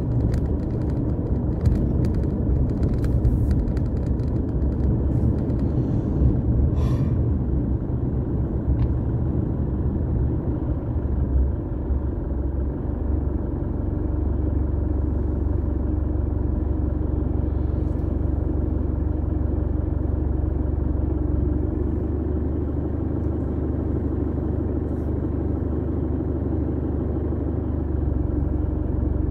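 Car interior noise while driving: a steady low engine and tyre rumble. Scattered knocks and rattles come in the first dozen seconds as the car crosses a rough dirt road, and the rumble then settles to an even drone.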